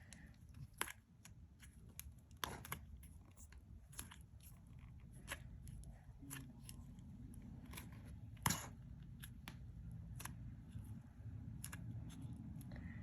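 Slime being worked and pressed, giving irregular small clicking pops of trapped air bubbles, with one louder pop about eight and a half seconds in.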